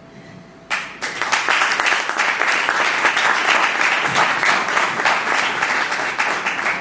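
Audience applauding. The clapping breaks out suddenly just under a second in and keeps up steadily.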